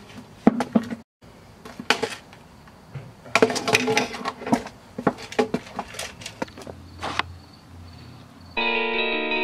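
Knocks and clatter of a skateboard and a plastic traffic cone being set down on pavement beside a person lying there, with shoe scuffs. The knocks are scattered, with a busy run about halfway through. Electric guitar music starts near the end.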